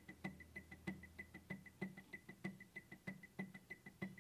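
Juki DX5 computerized sewing machine's button beeps, a short high beep repeating about three times a second as the stitch-width button is pressed again and again. Each beep comes with a soft click as the needle steps over to a new position.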